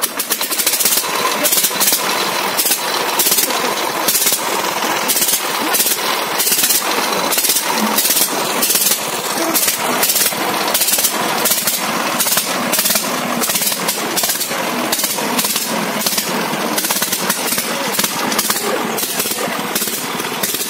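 A single-cylinder diesel power-tiller engine on a homemade loader catching as soon as it is rope-started, then running with a fast, even, loud knocking beat.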